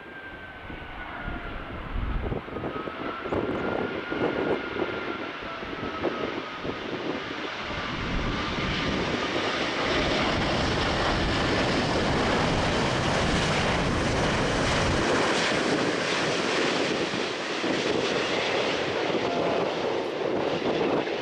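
Airbus A380's four Rolls-Royce Trent 900 turbofans on landing approach: a high engine whine sliding down in pitch over the first few seconds, under a jet rush that builds as the plane comes close and then holds loud and steady.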